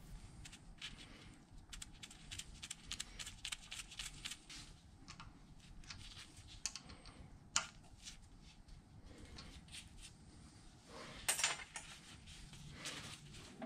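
Faint small clicks and light metal handling as gloved hands work on the brass oil-line fittings of a milling machine's lubrication system, with one sharper click about seven and a half seconds in and a short rustle, as of a rag, about eleven seconds in.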